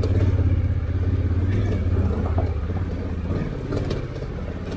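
Honda Africa Twin's parallel-twin engine pulling steadily under constant throttle as the motorcycle climbs a steep gravel track.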